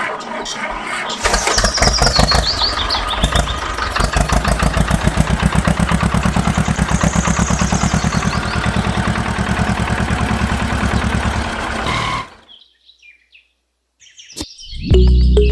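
Small engine running with a rapid, even putter, cutting off suddenly about twelve seconds in.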